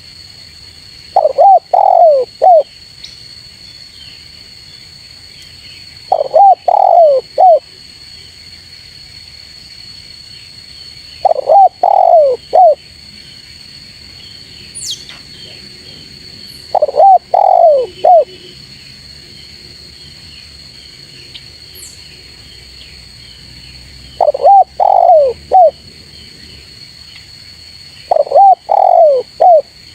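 Spotted dove (tekukur) cooing: six phrases, each a quick run of three or four coos, coming about every five seconds. A steady high-pitched hum runs behind them.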